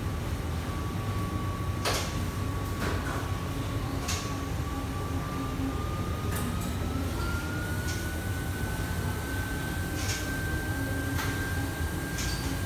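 Commercial kitchen ambience: a steady low rumble of the extraction hood fans and cooking burners, with a faint whine that slowly rises in pitch through the middle. Over it come several sharp clinks and knocks of cookware and utensils.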